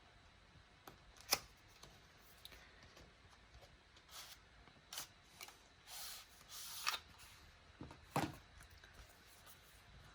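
Cardboard box and paper packaging being opened and handled: scattered faint rustles, with sharp clicks about a second in and again near the end.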